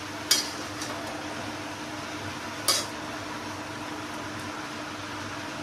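A utensil clinks twice against a large kadai of frying vegetables, once just after the start and again about two and a half seconds later, over a steady low hum.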